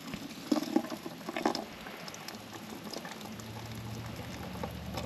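Gear oil draining out of a truck's auxiliary transmission and pattering into a drain pan, with scattered small splashes. A low steady hum comes in about three seconds in.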